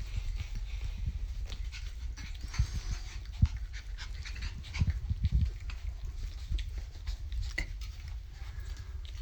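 Pembroke Welsh corgi puppies, almost six weeks old, panting close to the microphone, with scattered low bumps and knocks from handling.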